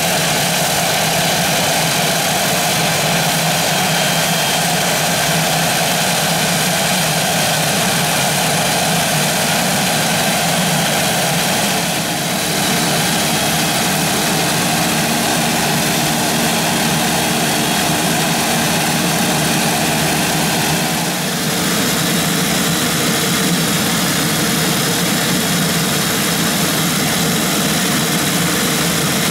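Pilatus PC-21 trainers' PT6A turboprop engines idling with their propellers turning: a loud, steady running sound from several aircraft at once.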